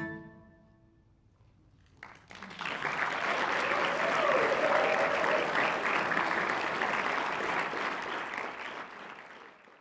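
Audience applauding in a hall. The ensemble's last note dies away at the very start, a short hush follows, and the clapping breaks out about two seconds in, holds steady, then thins out near the end.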